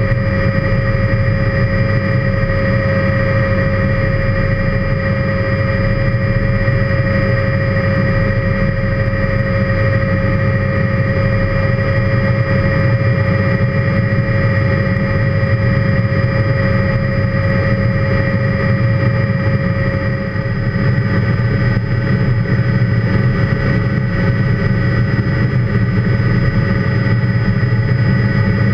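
Helicopter in cruise flight heard from inside the cockpit: a steady rotor and engine rumble with a constant high whine. About two-thirds of the way through, one of the whine tones fades out and the level dips briefly.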